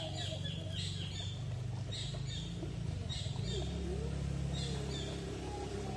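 Small birds chirping, short calls repeating once or twice a second, over a steady low hum.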